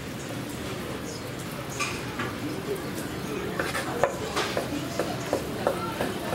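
Large kitchen knife chopping sundae (Korean blood sausage) and pig intestine on a wooden cutting board: sharp knocks of the blade on the board, sparse at first, then coming about three to four a second from about halfway, over a background of voices.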